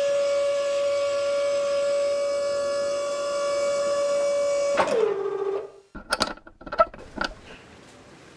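Electric motor of a car lift whining at a steady pitch as it raises a car. It winds down with a falling pitch about five seconds in, followed by a few sharp clicks and knocks.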